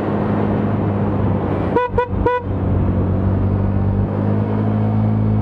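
A horn beeps three times in quick succession about two seconds in, over the steady drone of a motorcycle engine at a constant speed.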